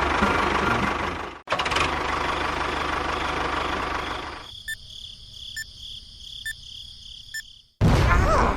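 A small engine running with a rough, rattling sound, cut off abruptly about a second and a half in and starting again. It then gives way to a quieter steady high whine with a faint tick about once a second. A loud burst of noise follows near the end.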